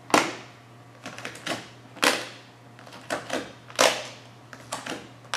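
Vinyl wrap film crackling and snapping as it is stretched over a curved hood edge and lifted off its sticky adhesive, in a string of sharp, irregular crackles about a second apart.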